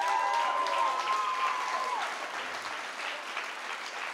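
Theatre audience applauding after a punchline, with a few drawn-out vocal cheers over the clapping in the first two seconds.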